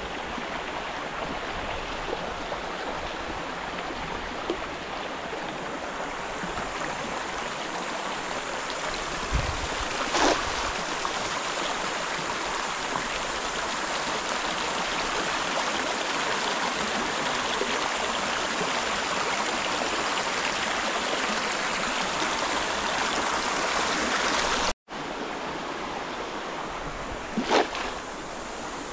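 Creek water running steadily, with two brief louder sounds, one about ten seconds in and one near the end.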